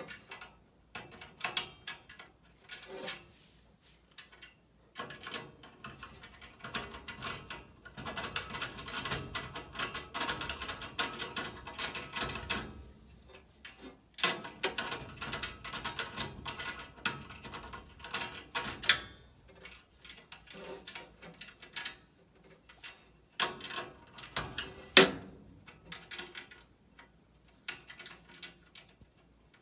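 Clicks, scrapes and rattles of hands handling metal furnace parts and fittings, with one sharp knock late on.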